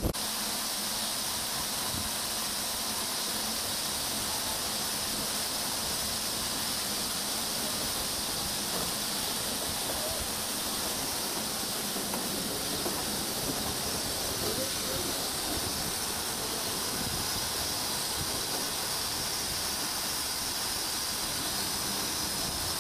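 Steam locomotive standing, giving off a steady hiss of escaping steam.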